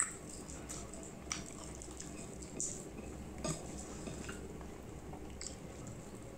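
Rice and curry being mixed by hand on a plate: soft, wet squishing with a few short, sticky clicks spread through, the sharpest right at the start and around one and a half and three and a half seconds in.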